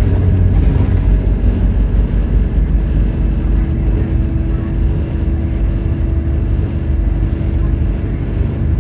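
Bus engine and drivetrain running while the bus is under way, heard from inside the passenger saloon: a steady low drone over road noise, with a steady whine setting in about three seconds in.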